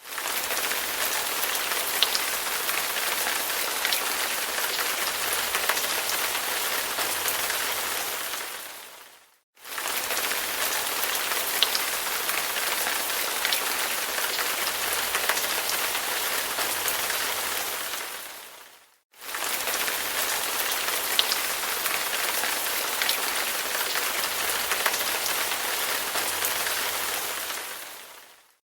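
Steady rain falling on a surface, with now and then a single louder drop. It fades out to silence and straight back in twice, the same short stretch of rain repeating about every nine and a half seconds.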